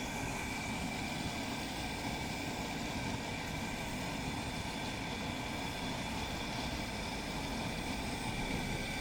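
Turkey fryer running steadily: the burner's even rush under the pot mixed with the turkey frying in hot oil, while the oil is brought back up to about 350°F.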